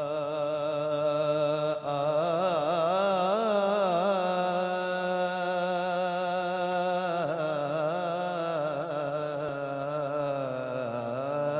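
A young man singing a naat, an Urdu devotional poem, into a microphone. He draws out long held notes with wavering ornaments.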